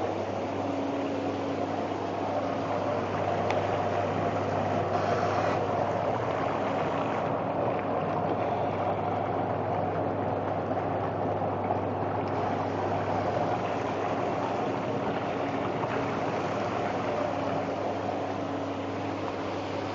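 Whirlpool bathtub pump motor running steadily with a constant low hum.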